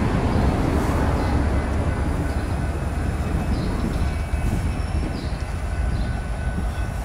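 BNSF freight train approaching behind its lead SD70ACe diesel-electric locomotive, a steady low engine rumble.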